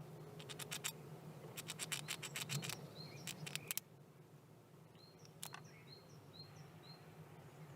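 Red squirrel at a bird feeder making quick runs of sharp clicks and scratches in the first half. A small bird then calls in short high notes, two or three a second, over a low steady hum.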